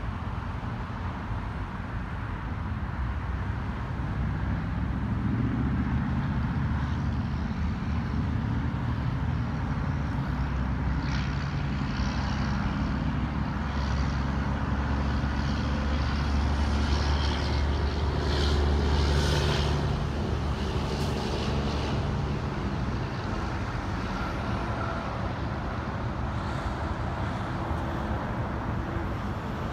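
A motor vehicle's engine running, a low rumble that grows louder about four seconds in and is loudest around two-thirds of the way through, with brief hissing now and then.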